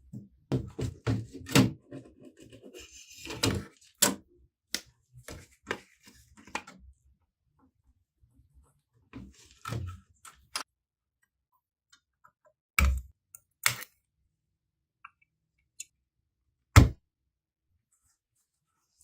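Clicks, taps and knocks of laptop parts and tools being handled: a quick run of them over the first several seconds, then a few separate knocks, the loudest near the end.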